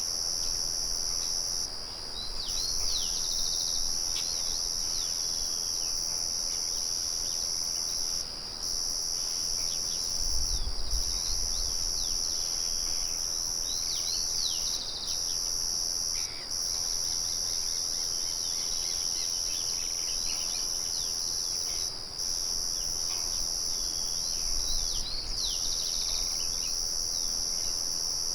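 Crickets chirping in a continuous high trill that drops out briefly every few seconds, with birds calling in short repeated chirps over it.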